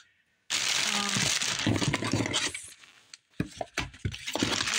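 Paper and packaging rustling as hands rummage in a cardboard shipping box, starting about half a second in and running for about two seconds, followed by a few light knocks.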